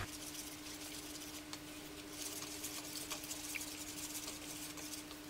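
Wire whisk beating a thin batter in an aluminium bowl: faint wet patter and many small clicks of the wires in the liquid, with a steady low hum underneath.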